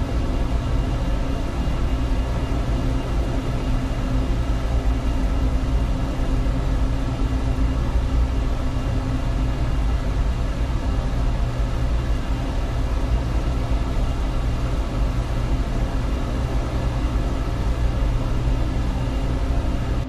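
Designed sci-fi spaceship sound effect: a steady, deep engine-like hum with many held tones layered over a rumble.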